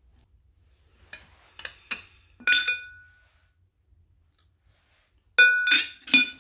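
Glass candle holders, one clear and one amber, clinking with a short ringing tone. There are four lighter clinks in the first few seconds, then three loud ones near the end.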